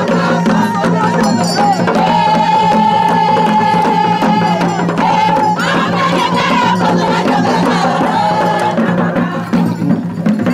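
Traditional folk procession music: voices singing held lines over continuous shaken and struck percussion, with crowd noise.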